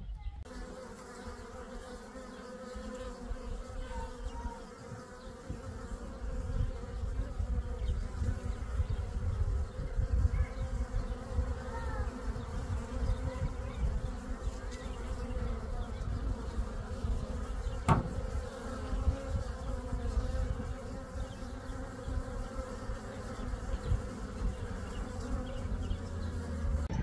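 Steady insect buzzing over a low, uneven rumble, with a single sharp click about 18 seconds in.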